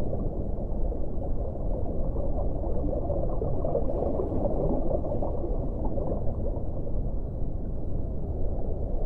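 Underwater ocean ambience: a steady, low, churning wash of water with no distinct calls or tones.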